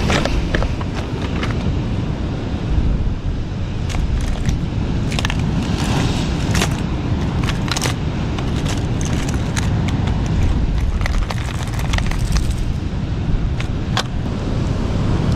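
Strong wind buffeting the microphone in a heavy, steady low rumble, with scattered sharp clicks and crackles throughout.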